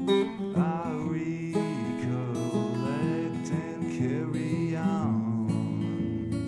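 Acoustic guitar music, strummed, with a higher melody line that bends and wavers in pitch over it from about half a second to five seconds in.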